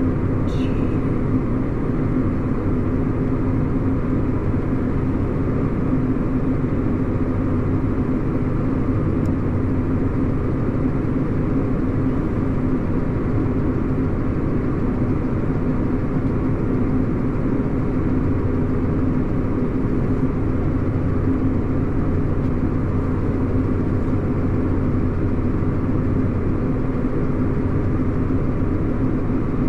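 Tractor engine running steadily at high RPM, powering a grain cart's unloading auger through the PTO as wheat is augered into a trailer hopper. It is an even, unchanging hum with a steady low tone.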